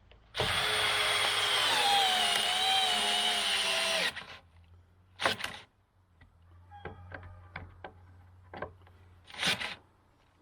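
Cordless drill running under load in wood for about four seconds, its pitch sagging slightly as it works, then two short bursts a few seconds apart with light clicks and knocks between.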